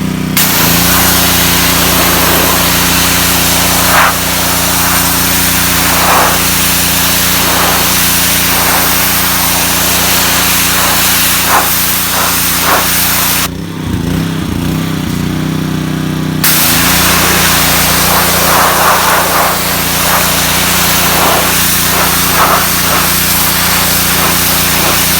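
Gas pressure washer running on its Honda GCV160 single-cylinder engine, with the steady engine note under the loud hiss of the high-pressure spray. The spray cuts off about halfway through while the engine keeps running, then starts again a few seconds later.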